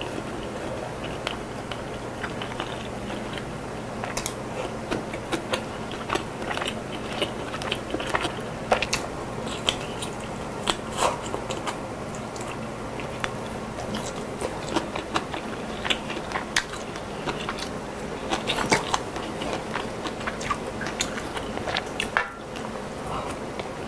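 Close-miked eating sounds: a person chewing mouthfuls of chicken kalguksu noodle soup, with wet mouth clicks and smacks at irregular moments.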